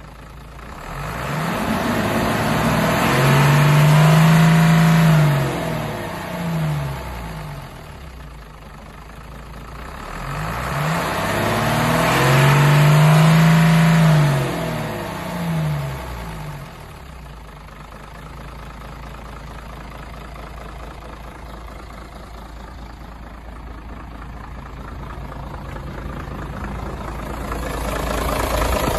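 Hino Ranger truck's J08C inline-six diesel engine revved twice, each time climbing, holding high for a couple of seconds and falling back, then idling steadily.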